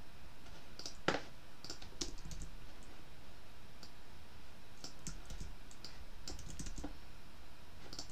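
Computer keyboard being typed on in short, scattered runs of key clicks, with one sharper click about a second in.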